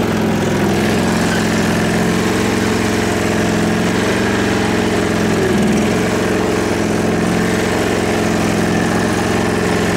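MTD LT-185 lawn tractor engine running steadily at an even speed after a cold start.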